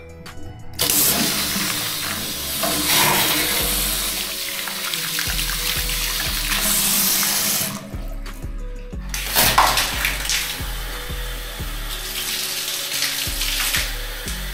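Water running hard from a bathroom tap, starting about a second in, stopping briefly around the middle and then flowing again, as the new plumbing's water pressure is tested. Background music plays underneath.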